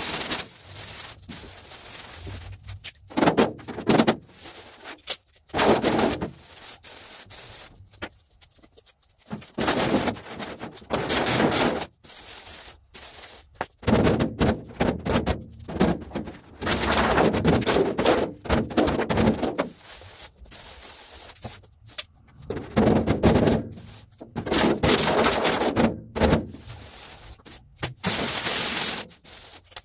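Body hammer striking the 1932 Chevy coupe's sheet-steel roof against a dolly, in runs of quick ringing taps broken by short pauses, as the welded roof-insert seams are hammered smooth.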